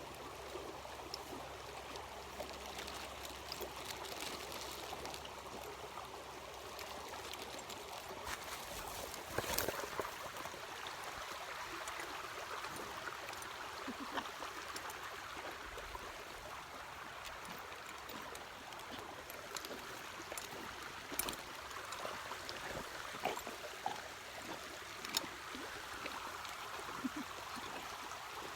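Running water flowing and trickling steadily, with a few brief clicks or knocks, the loudest about nine seconds in.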